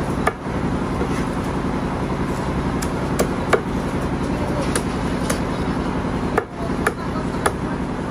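A heavy meat cleaver chopping through whole chickens on a wooden stump chopping block: about nine sharp chops, irregularly spaced, some in quick pairs. A steady low hum runs underneath.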